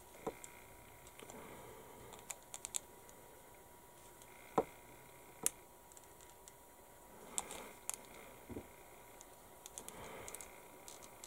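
Small grey plastic model-kit parts being handled and test-fitted together by hand: scattered faint light clicks and taps with soft handling rustle, one sharper click about halfway through and a quick cluster of clicks near the end.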